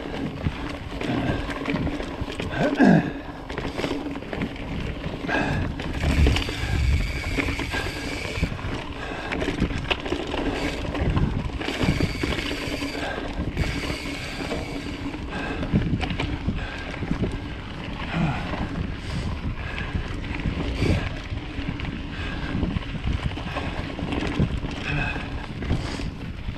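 Mountain bike rolling along a dirt forest singletrack: steady tyre noise with irregular knocks and rattles as it rides over stones and roots.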